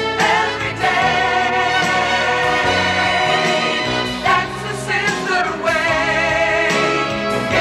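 Choir and orchestra performing an advertising jingle, with long held sung notes.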